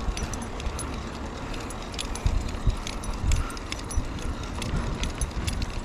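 Mountain bike rolling on asphalt with a leashed husky alongside: low wind and road rumble on the handlebar camera's microphone, with light, irregular metallic clinking from the leash and harness hardware.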